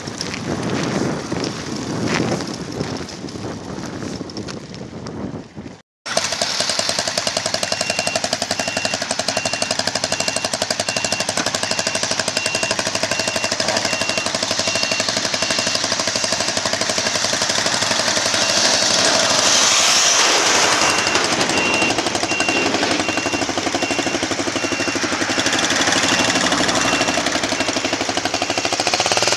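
Off-road vehicle engine running hard close by, with a fast, even rattling beat. It cuts out for a moment about six seconds in, then runs on steadily.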